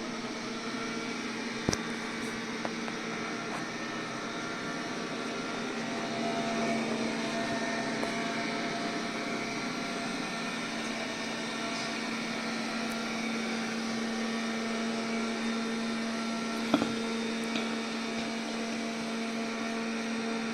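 MOVA robot vacuum cleaner running: a steady motor hum and whir from its suction fan and brushes, with two brief clicks.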